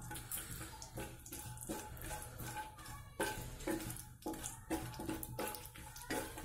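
Chopped cashews and almonds sizzling in hot ghee in an iron kadhai, with a wooden spatula scraping through them in repeated strokes, about two a second.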